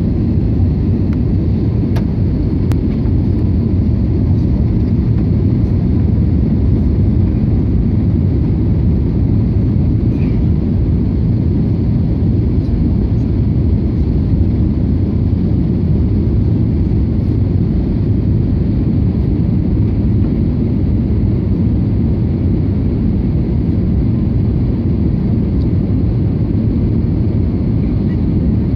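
Steady low rumble of jet airliner cabin noise, heard inside the cabin during the descent on approach to landing.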